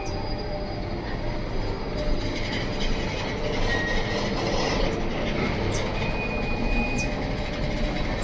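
Container flat wagons of a freight train rolling past: a steady rumble and rattle of wheels on rail, with a few short high-pitched wheel squeals, one near the middle and one about three-quarters through.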